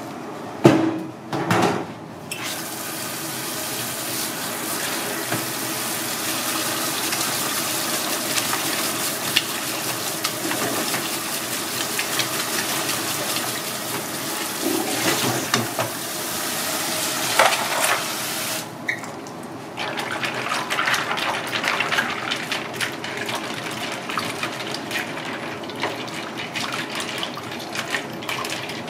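Tap water runs onto freshly boiled noodles in a plastic colander in a steel sink while hands rinse and rub them, to cool and wash the noodles. A couple of knocks come about a second in. The tap stops about two-thirds of the way through, leaving irregular splashing as the noodles are worked by hand in the water.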